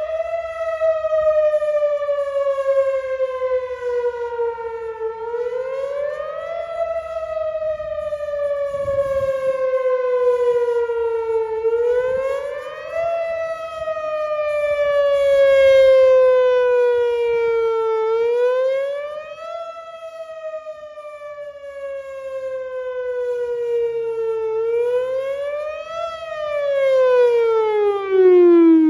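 Whelen WPS-4004 electronic outdoor warning siren sounding a test signal. It is a single pitched tone that rises quickly, then falls slowly over about five seconds, repeating about every six and a half seconds. Near the end it drops steeply in pitch and stops.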